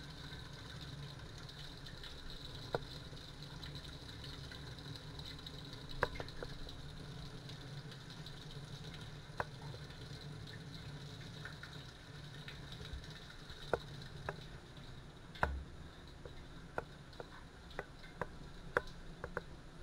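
A steady low mechanical hum with a faint high whine, broken by scattered sharp clicks and knocks that come more often near the end.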